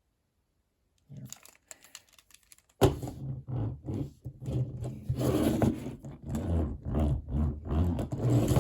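Handling noise from a toy monster truck and its packaging being moved about: faint clicks and rustling start about a second in, then louder, uneven rustling and scraping from about three seconds in.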